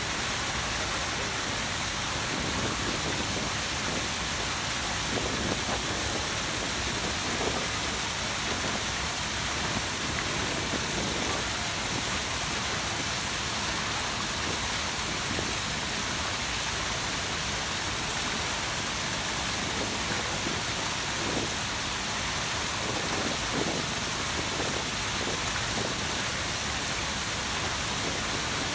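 The Grand Cascade fountains running: many water jets and cascading steps splashing into the pool, a steady, even rush of water.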